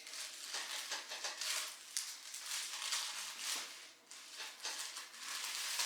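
Rustling and soft crinkling, irregular and noisy, from handling and movement on a chiropractic treatment table, with a brief lull about four seconds in.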